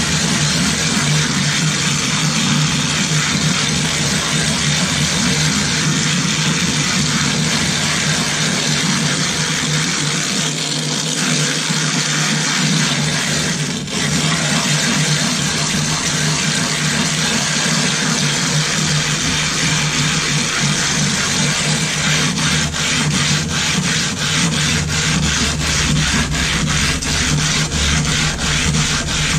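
Silicon carbide sharpening stone being lapped flat by hand on a glass plate with abrasive grit slurry: a steady gritty grinding and scraping of stone on glass. In the last several seconds it turns into quick, even strokes, about three a second.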